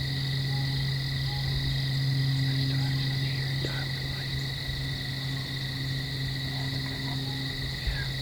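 Steady outdoor chorus of calling insects, a continuous high-pitched trill that holds unchanged throughout, over a steady low hum.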